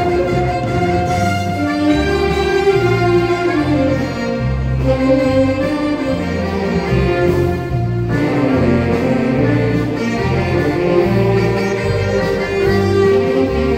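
Band music: a melody of long held notes over a regular, repeating bass line.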